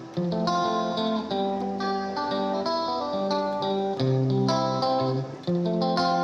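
Background music: a plucked guitar tune with a melody over a bass line.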